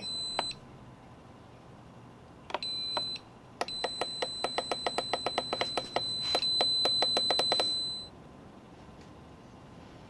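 Masterbuilt electric smoker's digital controller beeping on power-up: a short high beep at the start, another about two and a half seconds in, then a long steady beep with rapid clicking about five a second as its buttons are pressed, stopping about eight seconds in. The controller is turning on and staying on after being cleaned.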